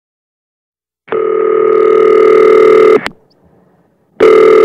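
Telephone ringing with an incoming call: one electronic ring of about two seconds, then a second ring starting about four seconds in.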